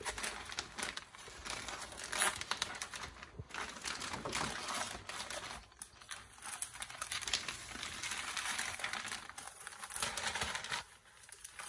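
Clear plastic vacuum-sealer bag crinkling and rustling as it is handled and skipjack are put inside, irregular, with many small sharp crackles, easing off near the end.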